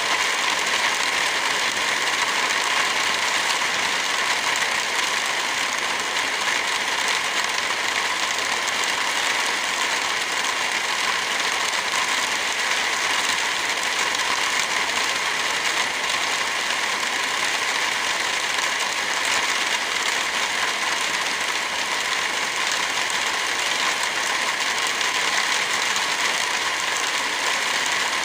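Heavy rain falling steadily as an even, dense hiss, with no thunder.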